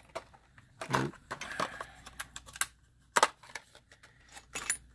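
Clear plastic clamshell blister pack handled, crackling and clicking irregularly, with the metal miniatures inside clinking against it.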